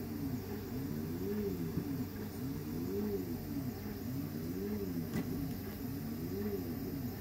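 CoreXY 3D printer's stepper motors whining as the print head traces circles, the pitch rising and falling in a smooth arch about every second and a half, over a steady low hum.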